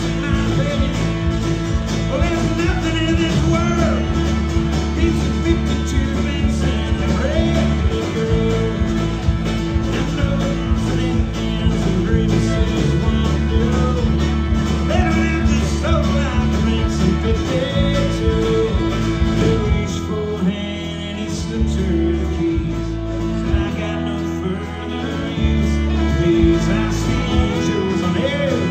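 Live country-rock band playing an instrumental passage: guitar lead lines with bending notes over bass and drums. The bass thins out for a few seconds past the middle, then the full band comes back in.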